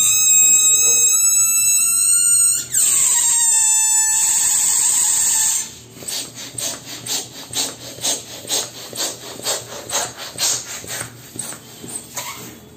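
Air squealing out through the stretched neck of a partly inflated spiral latex balloon: a steady high squeal that glides down in pitch between about two and a half and three and a half seconds in, holds at the lower pitch, and cuts off at about five and a half seconds. Then a hand balloon pump works in quick, even strokes, about three a second, inflating the spiral balloon.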